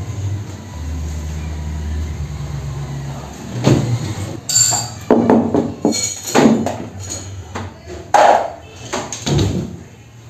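A low steady hum that stops about three and a half seconds in, then a string of knocks and clanks, some with a short metallic ring, as things are handled around an electric water pump and its hose fittings.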